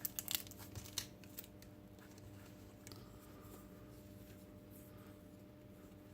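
Light clicks and rustling as small plastic kit parts and screw packets are handled, in the first second and a half. After that only a faint steady hum.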